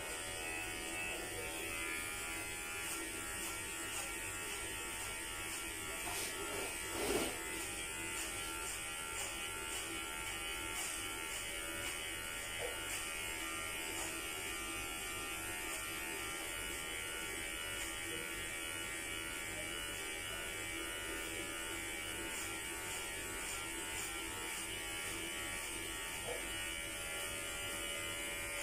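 Electric hair clippers running with a steady buzz as they are worked through short hair, with one brief louder sound about seven seconds in.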